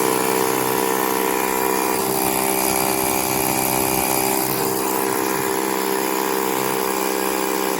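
Small electric air compressor built into a YaberAuto 6000A portable jump starter, running steadily with an even motor hum.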